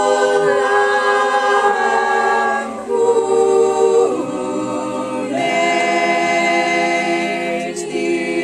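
A small mixed choir of school pupils singing unaccompanied in harmony, holding long chords that change every second or so, with a short breath near the middle.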